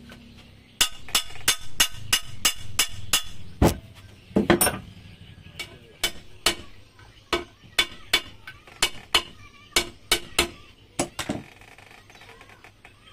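Sharp metal taps and clinks on a Yamaha 15 hp outboard's gearcase being assembled. A fast run of about four taps a second, then two heavier knocks, then slower taps about every half second that stop shortly before the end.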